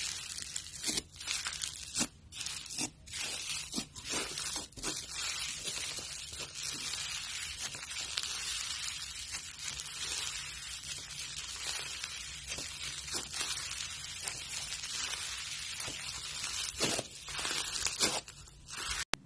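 Slime being handled, squeezed and stretched, giving a continuous fine crackling with sharper pops and snaps in the first few seconds and again near the end.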